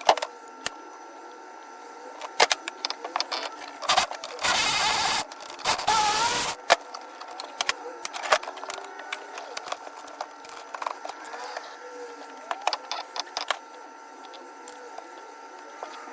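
A small handheld power tool, such as a cordless driver, runs in two short bursts of about a second each, the second rising in pitch as it spins up. Scattered clicks and knocks of tools and parts being handled surround the bursts.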